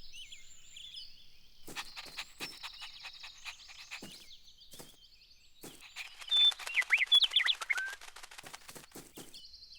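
Birds chirping and tweeting in a nature ambience, with short high calls and quick clicking trills. The chirping grows loudest and busiest from about six to eight seconds in.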